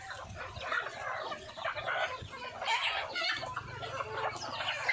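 A flock of desi chickens, Kadaknath among them, clucking and squawking in many overlapping short calls as they feed.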